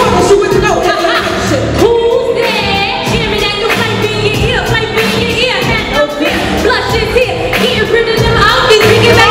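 Women singing into handheld microphones over a pop backing track, a live hip hop group performance.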